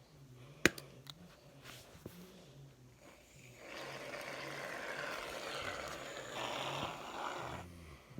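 Slime being worked by hand: a sharp click about a second in, then about four seconds of continuous noisy squishing that gets louder near the end.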